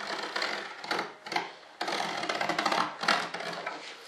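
Hand sanding along the edge of a freshly molded composite model-jet wing to clean up the edge: a series of rough, scratchy rubbing strokes, several short ones and a longer one about two seconds in.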